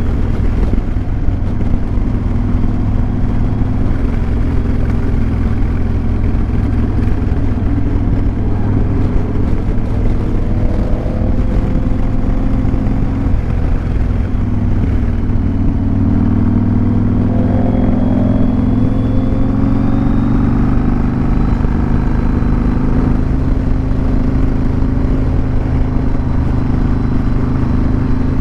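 Cruiser motorcycle engine running steadily at road speed, with wind and road noise over it. The engine note shifts a few times in the second half as the revs change.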